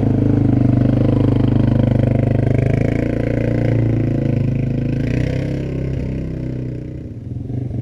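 Suzuki KingQuad ATV engine running steadily, its level easing slightly near the end.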